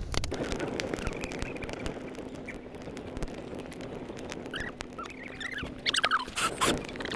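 Small bonfire of sticks and green grass crackling with scattered sharp pops, joined about four and a half seconds in by high, wavering squeaks and whistles that last to the end.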